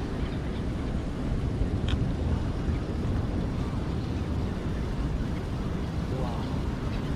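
Wind rumbling on the microphone over the steady wash of sea waves on the shore.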